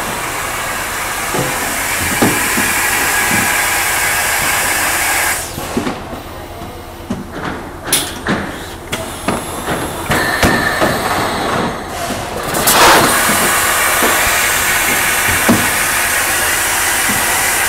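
Thermoforming machine cycling: a long steady hiss of air, then several seconds of clunks and metallic knocks from the machine, then another long hiss beginning about two-thirds of the way through.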